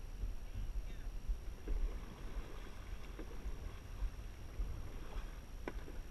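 Dragon boat paddles dipping and pulling through the water in unison, splashing along both sides of the hull, over a low wind rumble on the microphone.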